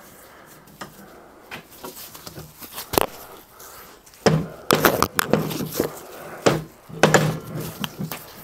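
Clunks, knocks and rattles of a heavy cast-iron steam waggon regulator body being handled and clamped into a bench vise. A sharp knock comes about three seconds in, and the loudest clattering is about halfway through and again near the end.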